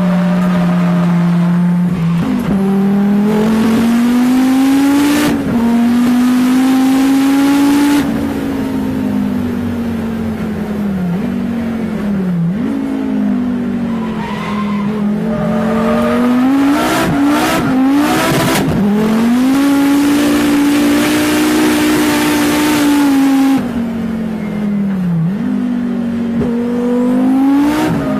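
Race car engine heard from inside the cabin, its pitch climbing and falling repeatedly with sharp dips as the driver shifts and lifts off the throttle, over long stretches of tyre and wind hiss. A little past the middle comes a short cluster of sharp knocks.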